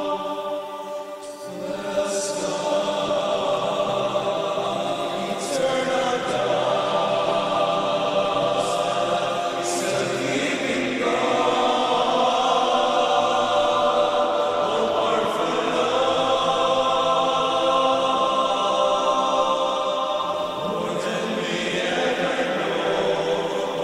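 Choir singing a slow hymn in sustained harmony, the chords held for several seconds before changing.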